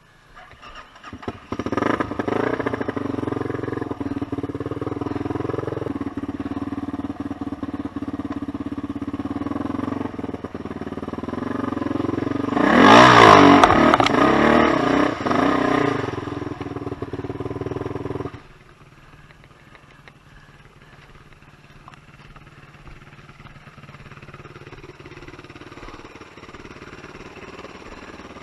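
Suzuki Z400 quad's four-stroke single-cylinder engine picks up about a second and a half in and runs steadily under way. Past the middle it revs up to its loudest, with pitch rising and falling through the throttle changes, then drops suddenly to a faint, steady idle for the last third.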